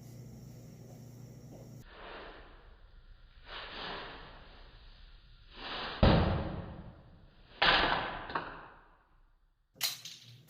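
Several swelling whooshes and sharp thuds from bottle cap kick attempts. The loudest thud comes about six seconds in and another about seven and a half seconds in.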